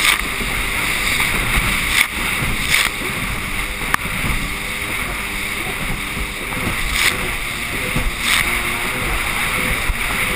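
Sea-Doo personal watercraft running at speed over choppy water: a steady drone of engine and rushing water and wind, broken by several sharp slaps as the hull hits the chop.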